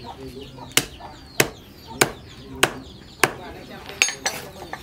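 Hammer blows on the end of a wooden knife handle standing on a wooden stump: a steady run of sharp, woody knocks, a little under two a second.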